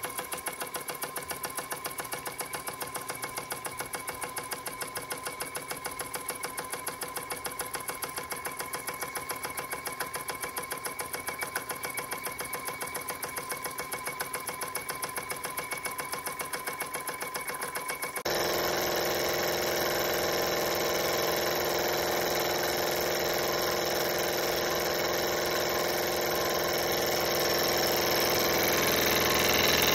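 Jensen 25GR toy steam engine running fast under steam, driving a small generator, with a rapid, even ticking chuff. About two-thirds of the way through, the sound changes abruptly to a louder, steadier running sound of the engine.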